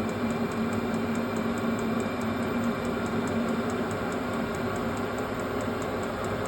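VEVOR 12V 8kW diesel air heater running warm: a steady hum of its fan and burner, with an even, regular ticking from its fuel pump.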